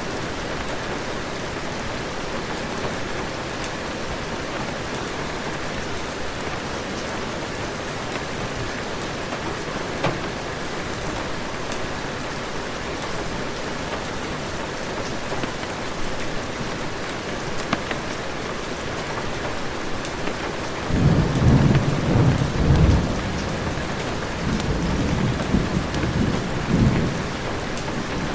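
Heavy rain falling steadily, with a low rumble of thunder rolling in about three-quarters of the way through and swelling twice before it fades.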